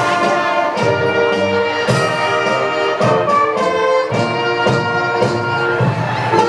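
High school concert band playing, brass carrying sustained chords that change every second or so.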